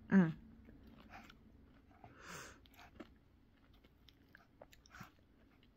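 Chewing a mouthful of Dairy Queen Blizzard soft-serve with chocolate and peanut butter pieces: soft wet mouth clicks and light crunches, with a brief hummed "mm" just after the start.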